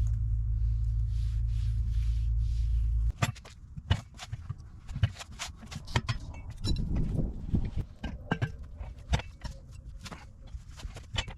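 A steady low hum that cuts off suddenly about three seconds in, then scattered clicks, knocks and light metallic clinks of hand tools and parts being handled while working on a tire's valve stem.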